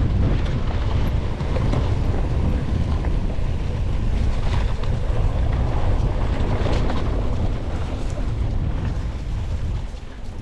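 Wind buffeting the onboard action camera's microphone while a mountain bike is ridden along a trail, with scattered rattles and knocks from the bike over the ground.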